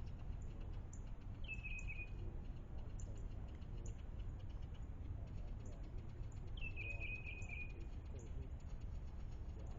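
Low, steady rumble of breeze on the microphone, with a bird giving two short calls, each a quick falling note that levels off, about a second and a half in and again near seven seconds.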